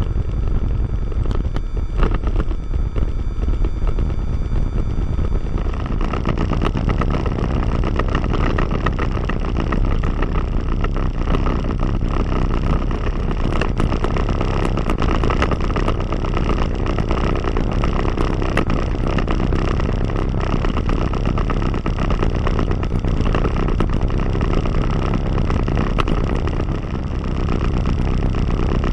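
Diamond DA20-C1's four-cylinder Continental IO-240 engine and propeller running at low taxi power, a steady drone heard from inside the cockpit. The sound turns brighter and hissier about six seconds in.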